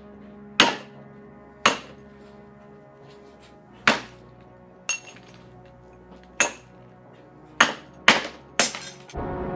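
The blunt back of a hatchet striking a light bulb: eight sharp knocks at uneven intervals, one of them weaker. The bulb is not yet breaking.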